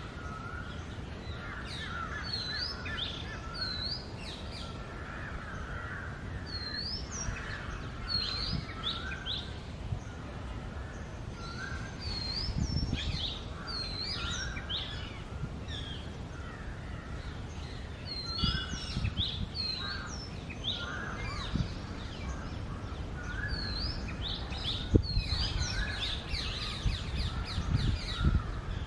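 Oriental magpie-robin singing: a varied, continuous run of short whistled notes and sharp upward-hooked calls, over a steady low background rumble.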